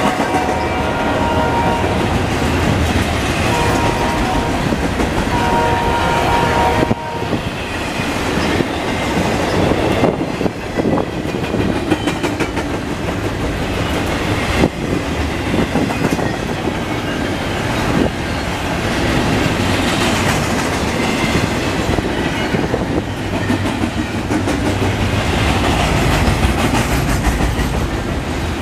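Loaded double-stack container well cars of a freight train rolling past at speed: a steady loud rumble and roar of steel wheels on rail, with occasional sharp clacks of wheels over rail joints. A thin high steady tone rides over it for the first several seconds.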